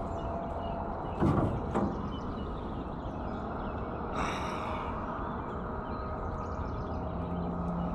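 A hooked bluegill splashing at the surface, two quick splashes about a second in, over steady outdoor background noise, with a short rush of noise about four seconds in.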